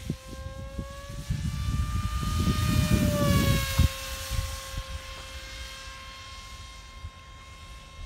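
Motor of an RC model F-22 Raptor jet whining in flight: a steady high whine that rises slightly in pitch, drops a little just past three seconds as the plane passes, then holds steady and fades as it flies off. A low rumble sits under it for the first four seconds.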